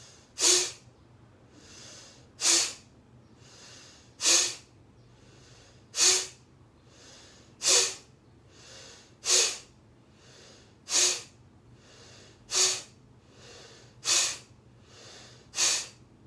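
A person's forceful, quick breaths out through the nose, ten in a row about one every second and a half, each with a softer breath in between, as in a yogic breath-release exercise.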